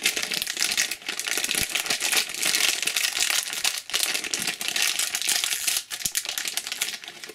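Foil wrapper of a Panini football figurine pack crinkling and crackling as hands twist and tear it open.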